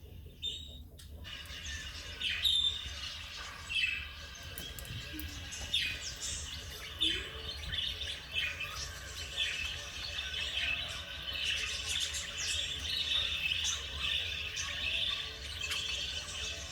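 Pet budgerigars chirping and chattering in quick, high twitters, busier and more continuous from about ten seconds in.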